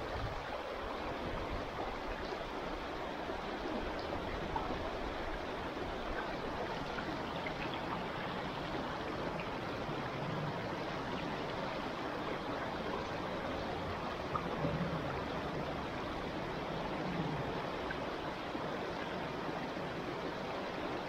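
Stream water running, a steady rushing.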